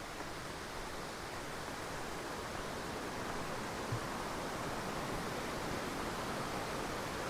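Steady rushing of a mountain creek and waterfall, growing slightly louder, with a single soft knock about four seconds in.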